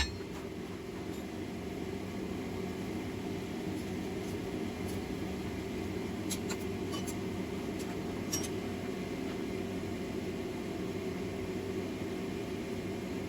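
A forge running with a steady, even hum, with a few faint light ticks about six and eight seconds in.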